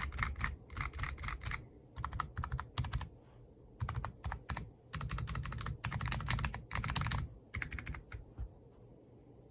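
Typing on an Akko Alice Pro Plus mechanical keyboard with a polycarbonate plate, tactile Sponge switches and hydrangea keycaps. Quick runs of keystrokes come with short pauses between them and thin out near the end.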